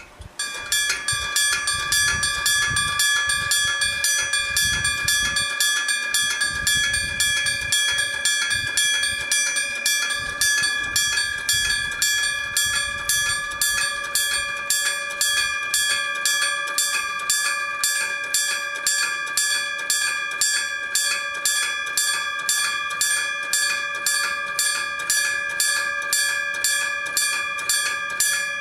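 Mechanical striking-bell level crossing alarm starting abruptly and ringing on steadily: a hammer strikes the bell about twice a second, and the bell's ring carries on between strikes. A low rumble sits under it for roughly the first half.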